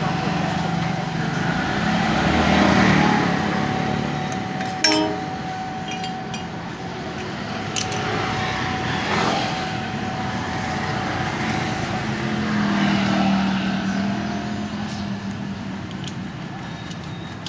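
Street traffic going by, twice swelling and fading as vehicles pass, with a single sharp metallic clink about five seconds in from hand work on a motorcycle's chamber exhaust.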